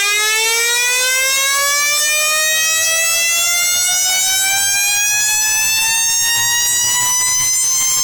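An 8-port, 240-volt electric motor siren (rotor-and-stator fire alarm) run through a variac, spinning up. It gives a very loud wail that climbs steadily in pitch, with a rising whine and many overtones, and its climb slows near the end as the rotor nears full speed.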